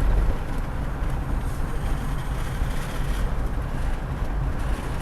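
Steady road and engine noise of a 2007 Pontiac Grand Prix being driven, a low even rumble, on a test drive after a forward band replacement in its 4T65-E automatic transmission.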